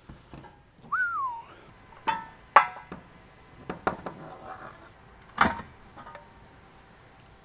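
A short whistled note that rises and then falls, followed by three sharp metallic clinks that ring briefly, the loudest about two and a half seconds in.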